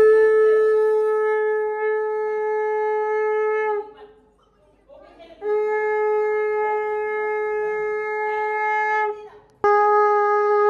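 Conch shell (shankha) blown in three long, steady blasts at one unchanging pitch, the third starting suddenly near the end, the auspicious conch call that marks a Bengali wedding rite.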